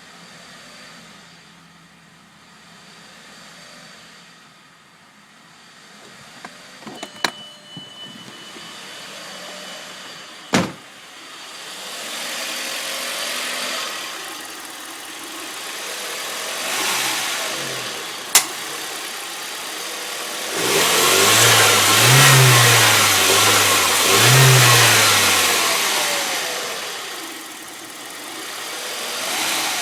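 1998 Audi A4 B5's engine being revved from the throttle: a quiet low idle, then several rising and falling swells in speed, with the two biggest close together near the end, and a few sharp clicks in between. The car has a rough idle that has logged fault code P1545, a throttle control fault.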